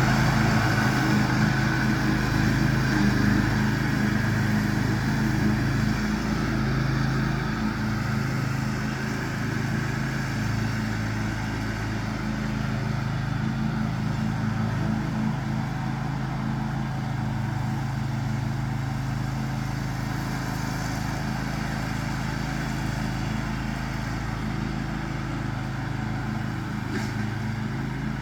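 John Deere X500 riding lawn mower running steadily at mowing speed, its engine hum gradually growing quieter as it moves away.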